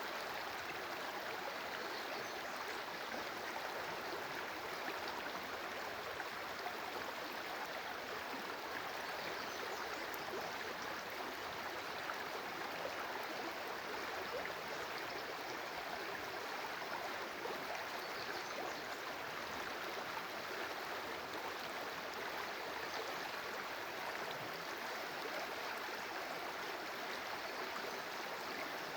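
Stream water flowing with a steady, even rush.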